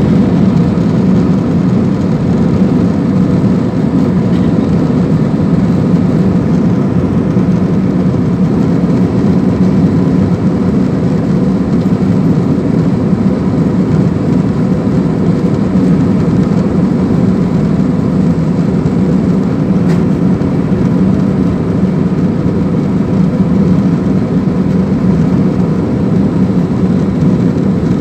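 Steady, loud roar of an airliner's jet engines and rushing air heard inside the passenger cabin in flight, with no change through the stretch.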